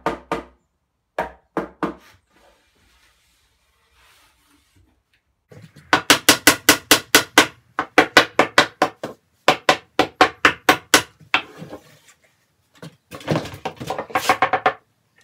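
Mallet striking a pine-board cabinet in quick runs of blows, about five a second, tapping a freshly glued base panel into place. A short run comes just over a second in, a long one from about five seconds to near twelve, and another near the end.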